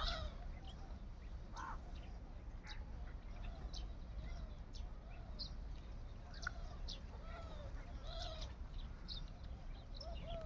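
Pet francolin (teetar) giving soft, short arching calls about once a second, with brief high chirps in between, over a steady low background rumble.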